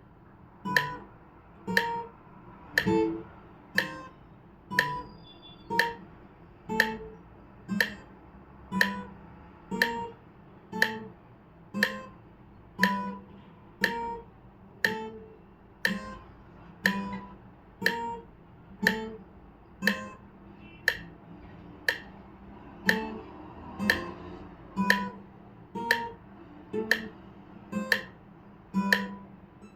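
Guitar playing a slow left-hand finger exercise, one note on each click of a metronome at 60 beats per minute: an even click-and-note about once a second.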